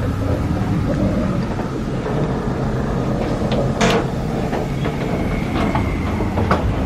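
Steady low rumble of a moving passenger train, heard inside the carriage corridor, with a sharp knock about four seconds in and a few lighter clicks after it.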